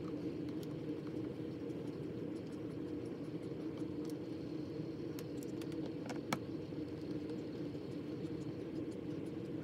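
A T6 Torx precision screwdriver backing screws out of the underside of a DJI Spark drone's plastic body, making small, sparse clicks, with one sharper click about six seconds in. A steady low background rumble runs underneath.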